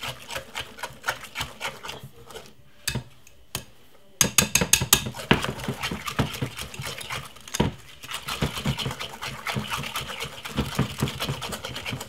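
Wire balloon whisk beating cake batter in a glass bowl: rapid, rhythmic clicking and tapping of the wires against the glass. It slackens briefly about two seconds in, then picks up louder from about four seconds in.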